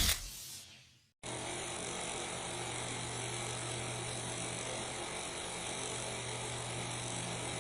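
The tail of a loud hit dying away, then, about a second in, a steady sound-effect drone that starts abruptly: an even hiss with a constant low hum under it, holding at one level like a running machine.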